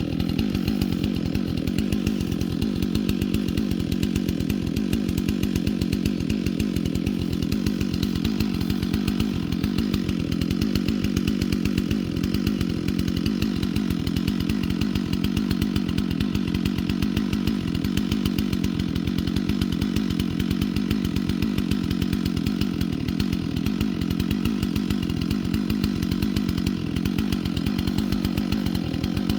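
Chainsaw running steadily, its engine note even and unchanging throughout.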